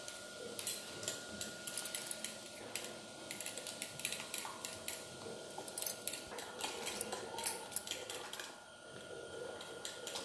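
A spoon stirring a wet mix of beaten egg, chopped onion and tomato in a bowl, clinking against the bowl rapidly and unevenly, with a short pause a little after eight seconds in.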